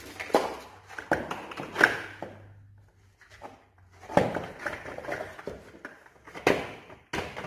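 Knocks and clatter of a white slatted folding table being turned over and opened out, its frame and top bumping and scraping. The impacts are scattered, with the sharpest about two seconds in and again near the end.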